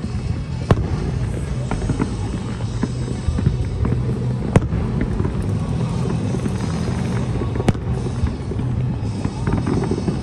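Aerial fireworks shells bursting: sharp bangs and crackles over a steady low rumble, with the loudest bang about four and a half seconds in and another near eight seconds.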